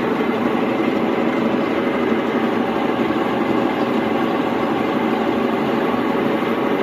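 Old 8 kg Brastemp washing machine in its spin cycle, running with a loud, steady mechanical drone. The noise is the sign of worn motor bearings, which the technician says need replacing.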